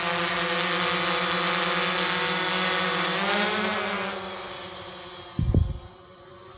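Original DJI Phantom (P330) quadcopter's four motors and propellers buzzing in a steady hover, the pitch rising briefly about three seconds in before the sound fades away. A brief low thump about five and a half seconds in.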